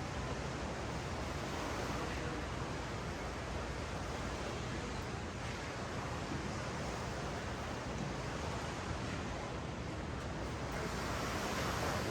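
Ocean surf washing up a sandy beach, a steady hiss that swells near the end, with wind rumbling on the microphone.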